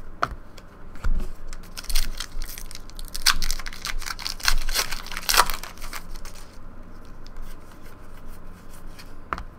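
A 2013 Upper Deck Goodwin Champions trading-card pack's wrapper being torn open and crinkled by hand: a dense run of crackling in the middle few seconds. Scattered clicks from cards being handled come before and after.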